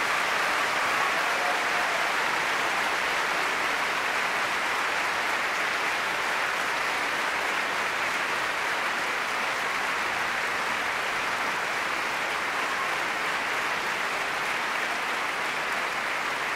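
Theatre audience applauding steadily, a dense even clapping with no music.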